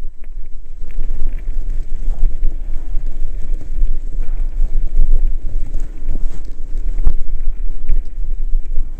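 Wind buffeting the microphone of a camera on a mountain bike riding a gravel singletrack, over a steady rumble of tyres and rattle from the bike, with sharp knocks as it goes over bumps; the strongest knock comes about seven seconds in.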